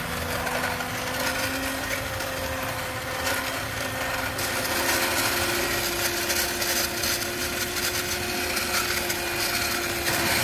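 Electric hand mixer running at high speed, its twin wire beaters whisking eggs and sugar in a glass bowl until the mix turns pale and foamy. A steady motor whine whose pitch shifts about four seconds in.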